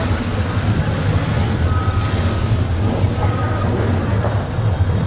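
Classic cars driving slowly past one after another, their engines running with a steady low rumble.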